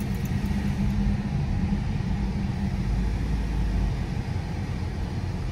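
Car engine and tyre noise heard from inside the cabin while driving up a parking-garage ramp: a steady low rumble.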